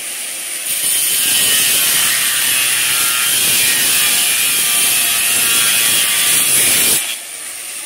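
Electric angle grinder with a cut-off disc cutting through a steel flat bar. The disc spins with a steady high whine, bites into the metal less than a second in with a louder, rougher grinding, and eases back to spinning freely about a second before the end.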